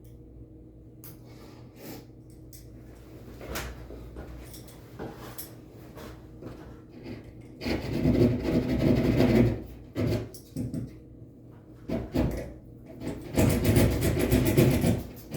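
Low steady hum with a few light knocks, then from about eight seconds in, several loud spells of scraping, with short gaps between them.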